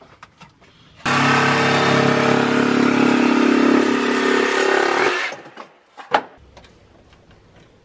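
A machine motor running steadily at an even pitch, cutting in abruptly about a second in and dying away after about four seconds.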